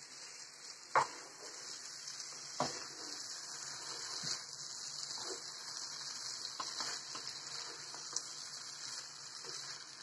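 Frog legs and vegetables sizzling steadily in a frying pan while being stirred with a wooden spoon, which knocks against the pan a few times, loudest about a second in.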